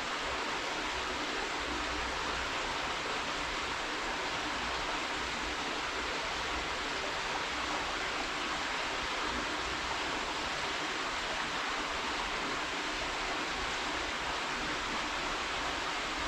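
Waterfall: falling water rushing steadily and evenly, with no breaks or changes.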